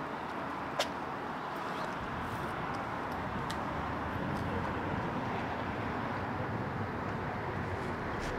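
A car driving past on a city street, its tyre and engine noise swelling through the middle and dropping away near the end. A single sharp click comes a little under a second in.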